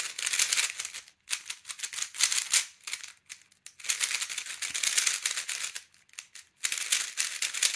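MoYu Super Weilong 3x3 speed cube being turned rapidly by hand: fast rattling clicks of the plastic layers snapping round, in bursts with a few short pauses.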